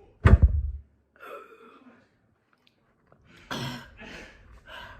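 A person eating very hot Blazin' wings: one sudden loud burst with a low thump just after the start, then quieter breathy huffs and exhalations near the middle and the end.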